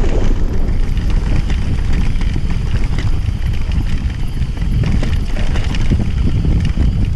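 Mountain bike descending a rough grass-and-dirt singletrack, heard from a bar-mounted action camera: wind buffeting the microphone, with the bike rattling and knocking irregularly over the bumps.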